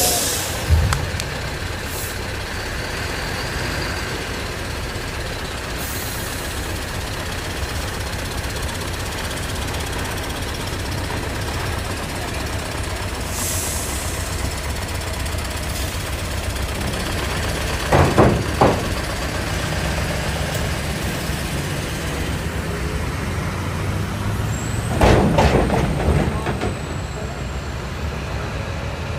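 Heavy truck's diesel engine running steadily at low speed while hauling a train car on its trailer, with short air-brake hisses now and then. There are a few louder clunks about 18 seconds in and again near 25 seconds.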